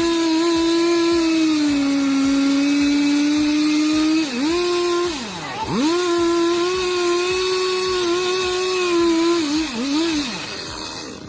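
Two-stroke chainsaw running at high revs, its pitch dropping sharply and climbing back a few times as the throttle is eased and opened again. It fades away near the end.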